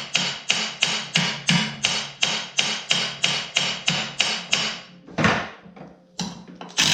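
Hammer beating on a steel clutch puller to break a snowmobile's primary clutch loose from the crankshaft taper. The blows come fast and even, about three a second, each ringing metallically. They stop a little past four seconds in, then one heavier blow lands and a couple of lighter taps follow.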